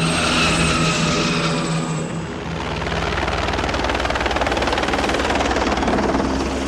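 Rotor-aircraft sound effect for spinning tip-jet rotors: a high jet-like whine falling slightly in pitch, then a loud, fast, even rotor beating over a deep rumble.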